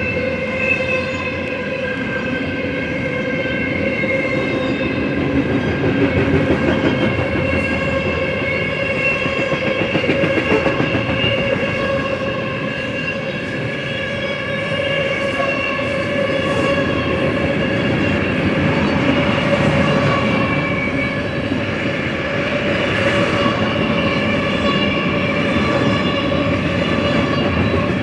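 Double-stack intermodal well cars rolling steadily past, a continuous rumble of wheels on rail with a steady, ringing whine from the wheels and rails over it.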